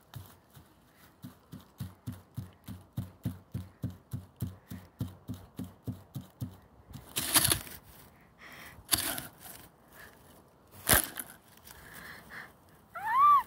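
Footsteps on dry grass at about three steps a second, followed by a few louder crunching rustles, then a short call that rises and falls in pitch near the end.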